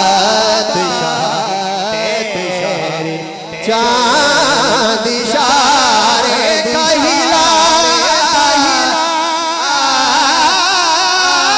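Male voice singing a naat through a microphone and loudspeakers, in long, ornamented melodic lines with wavering pitch. The singing softens for a moment about two to three and a half seconds in, then comes back at full strength.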